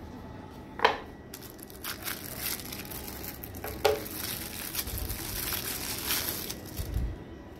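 Plastic wrapping crinkling and rustling as it is handled and unwrapped from a lighter. Two sharp knocks, one about a second in and one about four seconds in.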